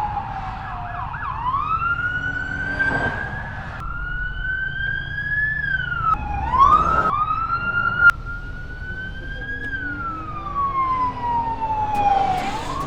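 Emergency vehicle siren wailing, its pitch gliding slowly down and back up over several seconds, with a second siren tone crossing it briefly a couple of times. A low road rumble runs underneath, and there is one sharp click about two-thirds of the way through.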